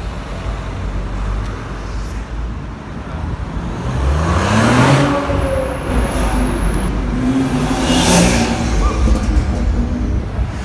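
Two cars accelerating hard past close by, one after the other, engines revving with rising pitch; the first passes about five seconds in, the second about three seconds later.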